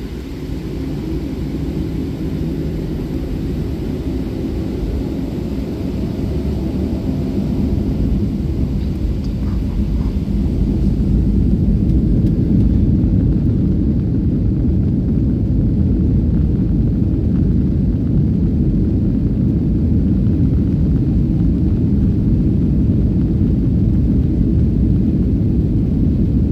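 Cabin noise of a Boeing 737 airliner on its takeoff roll: the jet engines spooling up to takeoff power with the wheels rumbling on the runway, growing louder over the first dozen seconds and then holding steady.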